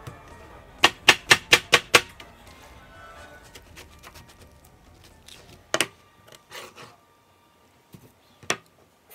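Kitchen knife chopping a watermelon: six quick, sharp chops about a second in, then a few single knocks, over faint background music.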